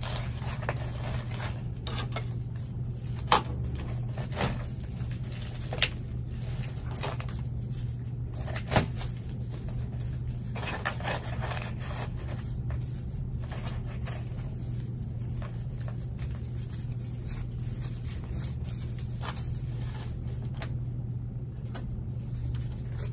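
Gloved hands working orchid bark potting mix around a plant in a plastic pot: scattered rustling and crunching with a few sharp clicks in the first half, over a steady low hum.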